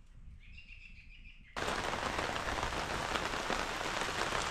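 Faint bird calls over a quiet background, then, about a second and a half in, a sudden change to loud, steady rainfall with a dense patter of drops.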